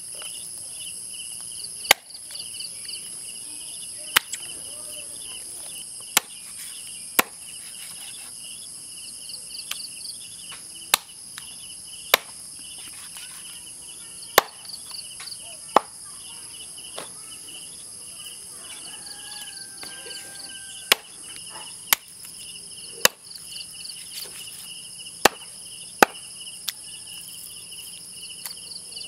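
A large knife chopping raw chicken on a wooden tree-stump block: about a dozen sharp single chops, one every second or two with irregular pauses. Under them runs a steady, high-pitched insect chorus.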